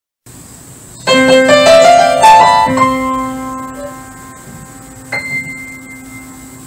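Short piano jingle: a quick run of rising notes about a second in, settling into a held chord that rings and slowly fades, with a single high note struck about five seconds in.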